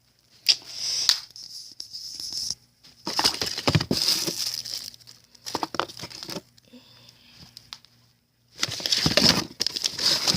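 Firework packaging crinkling and rustling in irregular bursts as the fireworks are handled, with a pause of about a second near the end.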